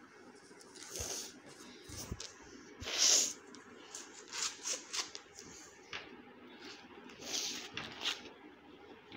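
Fresh corn husks being pulled and torn off the cobs by hand: a series of dry rustling rips, the loudest about three seconds in.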